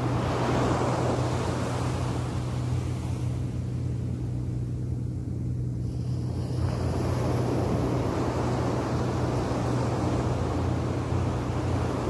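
Small waves breaking and washing up a sandy beach, the wash thinning out a few seconds in and swelling back about halfway through, over a steady low hum and wind rumble on the microphone.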